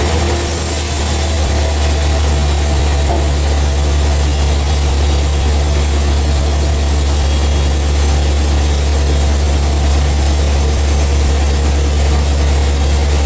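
Heavy machinery engine running steadily at an even speed, a loud deep drone.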